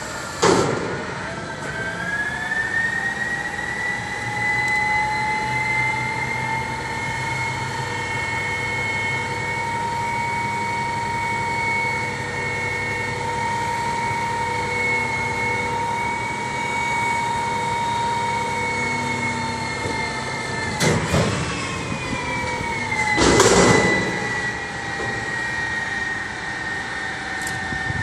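DaDee Mantis front-loader garbage truck working its lift hydraulics with the engine revved: a steady high whine that rises in pitch about two seconds in and holds. Loud metal bangs come about half a second in and twice more near the end as the container is handled and lowered, after which the whine drops lower.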